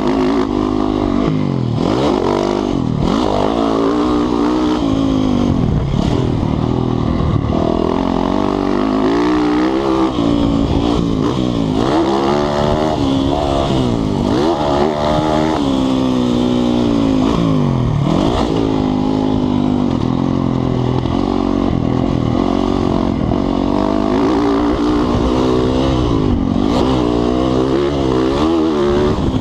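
Motocross dirt bike engine heard from on board, repeatedly revving up in pitch and dropping off sharply as the rider throttles on and off and shifts through the gears.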